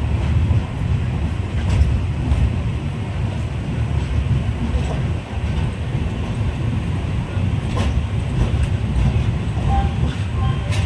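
Passenger train running: a steady low rumble of wheels on the track, with a few faint clicks.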